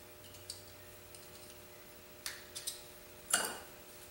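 Light metallic clicks as the parts of a Quincy 325 compressor intake valve are handled and fitted together by hand. A few scattered clicks, with the sharpest one a little past three seconds in, over a faint steady hum.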